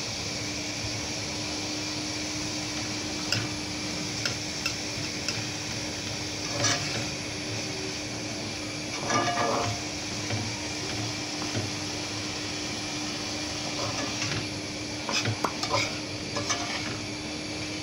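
Metal spatula scraping and clacking against a frying pan as sliced gourd and onion are stir-fried, over a steady sizzle. The clacks come in irregular clusters, with a longer scrape about nine seconds in.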